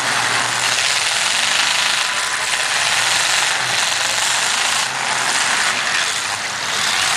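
Loud, steady racket of several demolition derby cars' engines running hard in the arena.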